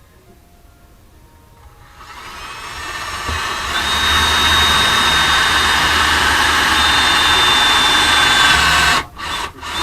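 Electric drill spinning up, running steadily with a high whine for about five seconds, then stopping and giving a couple of short bursts near the end.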